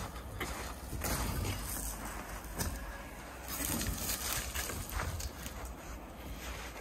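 Footsteps crunching in snow, uneven, over a low rumble.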